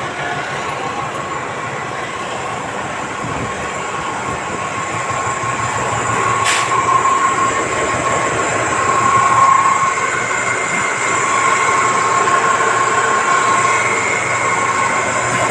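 Concrete batching plant running while batching concrete: steady loud machinery noise with a high whine, and one sharp knock about six and a half seconds in.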